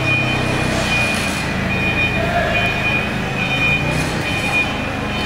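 Propane-fuelled engine of a CAT GC30K forklift running steadily as the truck drives and turns, with a high-pitched tone that comes and goes over it.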